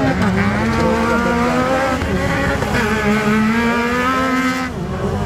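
Several side-by-side UTV engines revving as they race on a dirt track, overlapping engine notes rising and falling in pitch with the throttle; the loudest note dips near the end.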